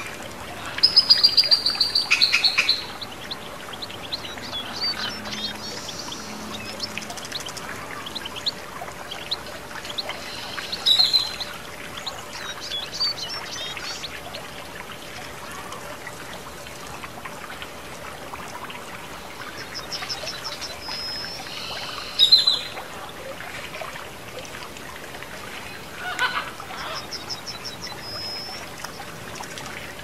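Water trickling and splashing down a tiered stone fountain, with small birds chirping in short, high, rapid trills several times, the loudest about a second in and about 22 seconds in.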